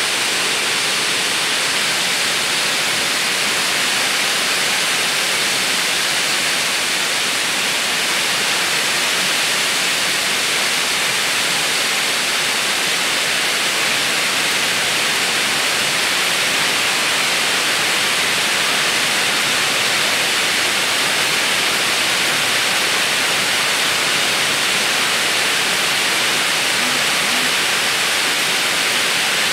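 Steady, even hiss that does not change at all, with no hum, knocks or rhythm standing out.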